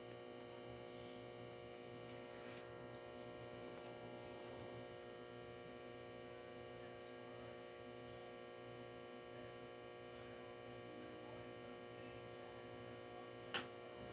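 Faint steady electrical hum made of many fixed tones. A few light ticks come about three seconds in, and one sharp click comes near the end.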